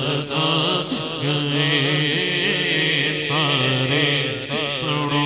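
A man singing a Punjabi naat (devotional song in praise of the Prophet) into a microphone, with long melismatic phrases and wavering held notes.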